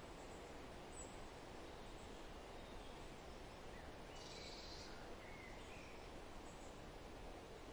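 Faint steady outdoor background hiss, with a few faint bird chirps about five seconds in.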